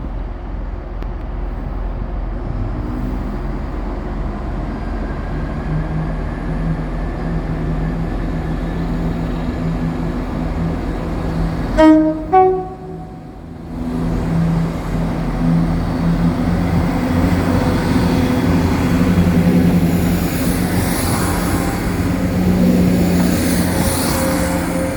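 Class 170 Turbostar diesel multiple unit's underfloor diesel engines running under power as the train pulls away and builds speed. About twelve seconds in, its two-tone horn sounds two short notes, low then high.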